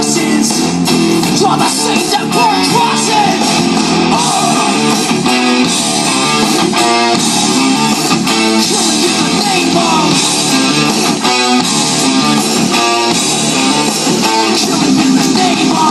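Guitar-led music played loud through a large outdoor concert sound system as a speaker demo track.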